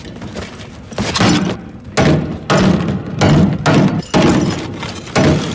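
A series of about nine heavy bangs and thuds against a bolted wooden door, coming in uneven bursts roughly two a second from about a second in.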